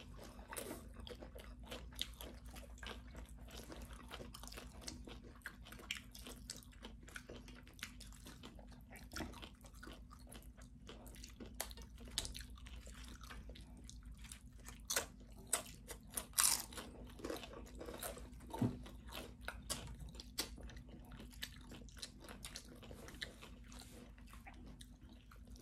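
Tortilla chips from loaded nachos being bitten and chewed close to the microphone by two people: irregular crisp crunches, loudest in the middle stretch, over a low steady hum.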